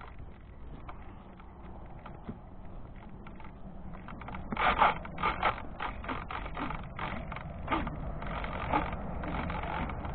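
Handling noise picked up by a camera mounted on top of a model airplane as it is carried by hand: a low rumble with scattered scrapes and knocks, a cluster of them about four to five and a half seconds in and a few more later.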